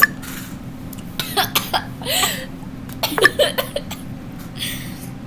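A person coughing and making short breathy throat sounds several times, over a steady low hum.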